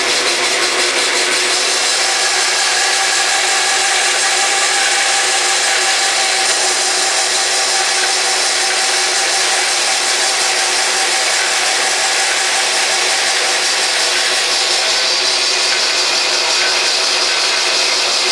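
Bandsaw blade ripping lengthwise through a round, bark-covered log, making a steady cutting noise with a faint whine.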